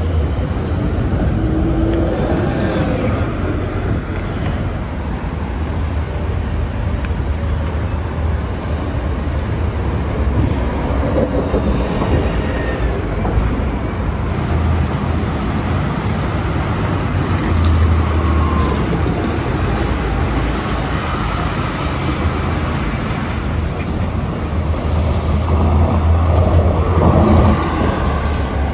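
City street traffic: DART transit buses and cars passing, with steady low engine noise throughout, loudest as a bus is close by near the end.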